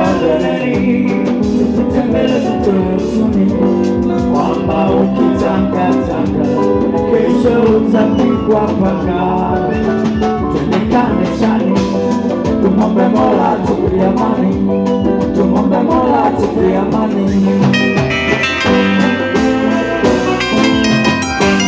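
Live band playing dance music: saxophones over electric guitar, keyboard and drum kit, with a man singing into a microphone.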